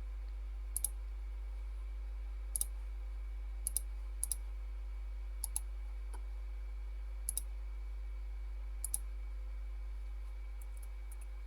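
Computer mouse clicking about seven times at irregular intervals, each click heard as a quick pair, over a steady low hum.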